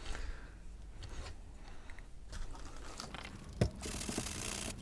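Light handling noises of a plastic computer case being set up for cleaning, a single sharp knock about three and a half seconds in, then steady scrubbing on the case's underside.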